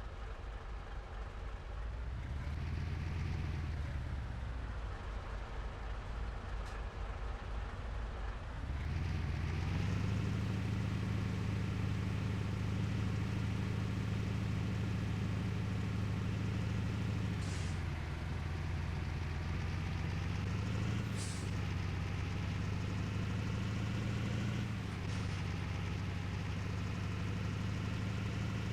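Water tanker truck's diesel engine under way: it revs up and falls away a few seconds in, then pulls steadily, its note dipping at gear changes three times near the end, each with a short hiss of air.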